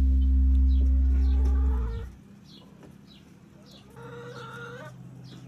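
A loud steady low drone cuts off about two seconds in. Chickens cluck quietly after it, with short calls that repeat and grow a little louder in the last seconds.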